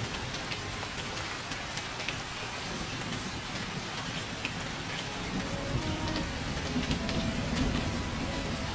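Steady soft rain, with scattered individual drops tapping.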